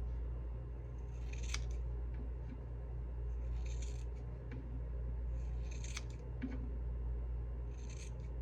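Scissors snipping through hair to cut off the ends: four cuts about two seconds apart.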